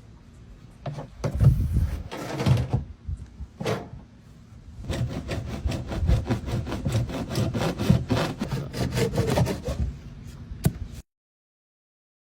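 Rubbing and scraping, then a fast, even rasping of about six strokes a second, as of hand work on the build materials. It cuts off into dead silence near the end.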